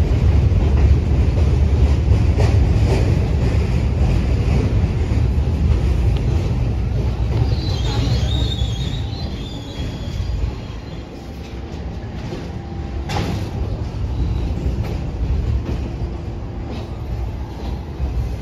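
New York City subway train running on the rails with a heavy low rumble. A brief high wheel squeal comes about eight seconds in, the rumble then eases off, and a single sharp clack comes a few seconds later.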